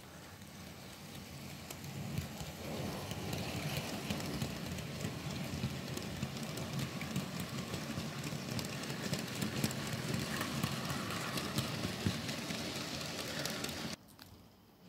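Model train rolling past on sectional track: the rumble builds as it approaches, then a steady rattle with many small clicks from the coal wagons' wheels on the rails, cut off suddenly about a second before the end.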